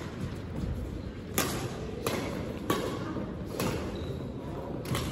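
Badminton rackets striking a shuttlecock in a doubles rally: five sharp hits, roughly a second apart, over a steady low background hum of the hall.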